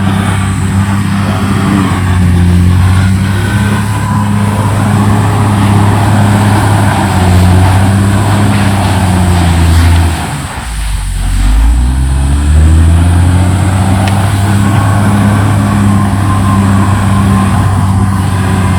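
CAT D6R XL bulldozer's diesel engine running hard with a steady drone. About ten seconds in, its revs sag sharply and then climb back up over a second or two.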